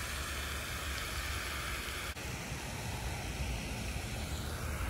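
Wind buffeting the microphone over the steady splashing hiss of a pond's spray fountain, with a faint click about two seconds in.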